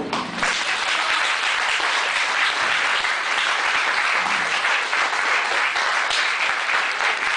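Small audience clapping, a steady applause right after the end of a sung ballad with acoustic guitar.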